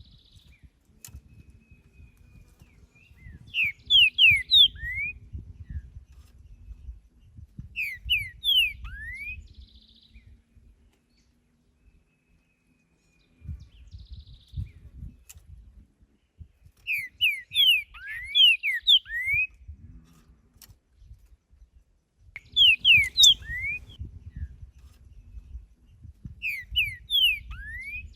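Green-winged saltator (trinca-ferro) singing: five short phrases of loud, clear whistled notes sliding in pitch, a few seconds apart with one longer pause midway, over a low rumble.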